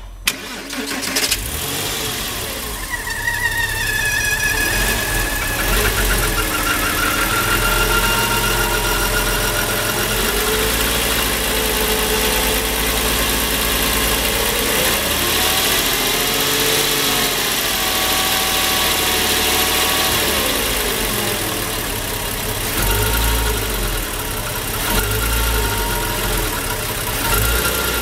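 Porsche Boxster 986 flat-six starting and then idling, with a moaning whistle that slowly wavers up and down in pitch. This is the noise of a blocked air oil separator.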